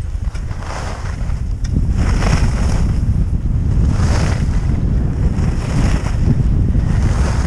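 Heavy wind rumble on an action camera's microphone during a fast downhill ski run, with the hiss of skis on snow swelling about every two seconds.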